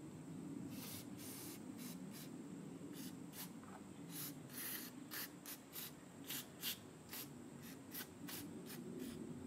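Aerosol carburetor cleaner sprayed onto a small-engine carburetor in quick short hissing bursts, about eighteen over eight seconds at an irregular pace.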